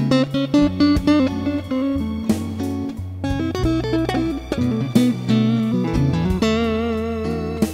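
Instrumental background music: guitar lines with changing pitched notes over a bass line.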